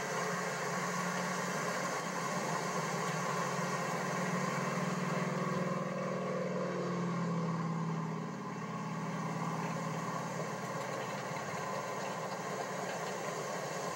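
Double-stack container freight train rolling steadily past, an even running noise that holds at one level, dipping briefly about eight seconds in.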